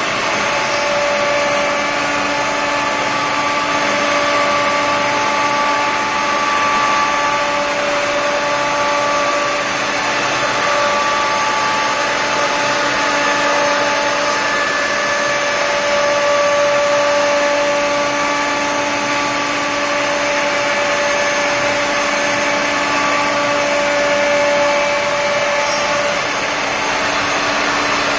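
Multi-spindle CNC router running a cutting job, its spindles whining while they cut grooves in a panel, over a steady rush of noise. The whine holds at a few steady pitches that fade in and out as the cut goes on.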